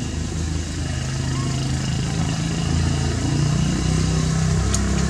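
A small engine running, getting gradually louder.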